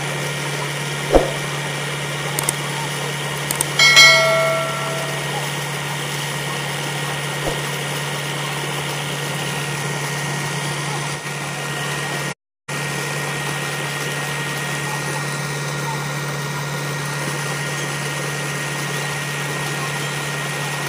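Tractor engine running steadily to drive a tube well's turbine pump, with water gushing from the discharge pipe into a pool. A sharp knock comes about a second in and a short pitched call about four seconds in.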